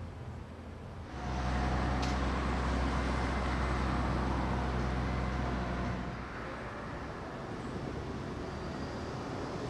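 Street traffic. A motor vehicle's engine comes in about a second in and runs as a loud, steady low hum for about five seconds, then drops back to a quieter traffic hum.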